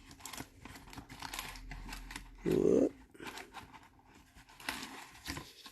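Rustling and crinkling of a trading-card pack's wrapper and cards being handled, with many small scattered clicks. A short hum-like voice sound about two and a half seconds in.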